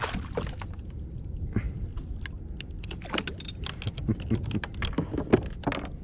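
Fishing tackle being handled on a kayak: irregular metallic clicks and rattles, sparse at first and coming thick and fast in the second half.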